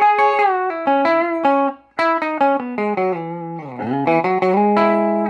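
1957 Fender Telecaster played clean through a Silvertone amp: quick single-note lead lines with string bends, a brief break about two seconds in, then a descending run that settles on a held note.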